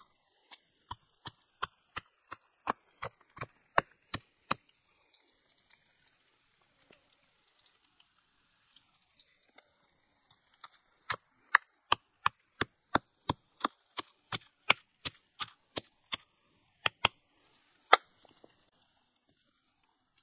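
Knife chopping on a wooden board in quick, even strokes, about three a second, in two runs with a pause between.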